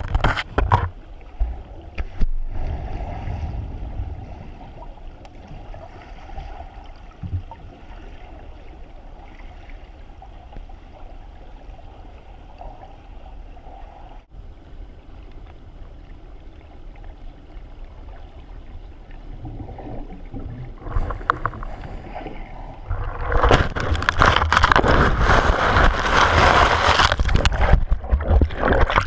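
Muffled rushing water under the surface of a waterfall pool, heard through a GoPro's housing. About three-quarters of the way through it gives way to loud splashing and rushing water.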